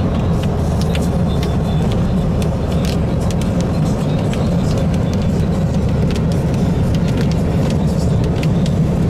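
Car interior road noise while driving at highway speed: a steady low rumble of tyres and engine, with faint scattered ticks over it.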